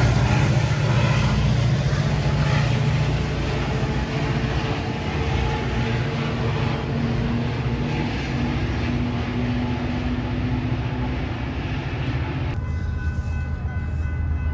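Metra commuter train's EMD F40PH diesel locomotive and cars moving away along the track: a loud low engine rumble with steady rail and wheel noise. It drops off sharply about twelve and a half seconds in, leaving a fainter hum and a few thin steady tones.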